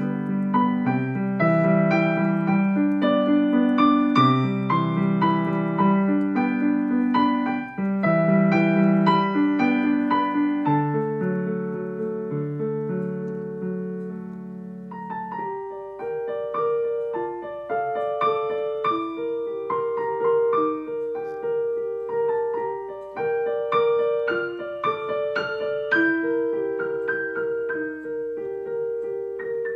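Yamaha digital piano played with both hands: a melody over a busy low accompaniment that softens about halfway through, then continues in a higher register with repeated notes and little bass.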